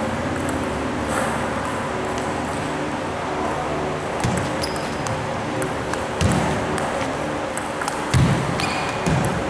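Table tennis rally: a celluloid ball clicking off bats and the table, starting with a serve about four seconds in, with heavier thumps as the player lands on the floor on the hardest strokes. Faint voices and a steady hum from the hall underneath.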